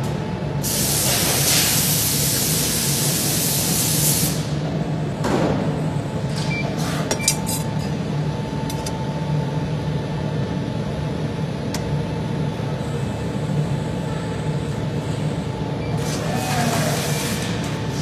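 Steady machine hum of shop machinery in a large workshop, with a loud hiss of air lasting about three seconds near the start and a shorter hiss near the end. A few light metallic clicks and clinks sound a few seconds in.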